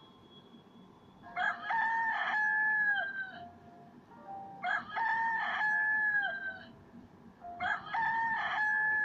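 Rooster crowing cock-a-doodle-doo three times, about three seconds apart. Each crow is a long call with a held note that drops in pitch at the end.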